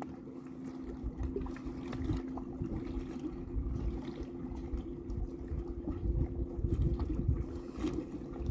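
Breeze buffeting the microphone and small wind-driven ripples lapping at the shore, with a steady low hum underneath.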